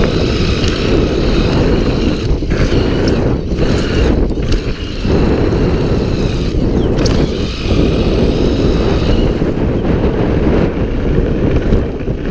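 Heavy wind buffeting on the camera microphone and tyre noise from a homemade electric bicycle riding fast over a dirt motocross track, with a faint high whine that wavers in pitch.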